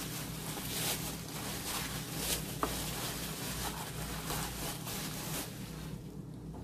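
A thin plastic grocery bag rustling and crinkling as a package of pork belly is pulled out of it, with one short click near the middle. The rustling dies down about five and a half seconds in.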